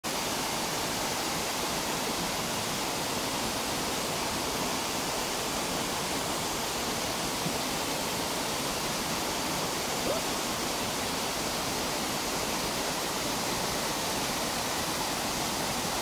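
Waterfall cascading over rock ledges: a steady rush of falling water.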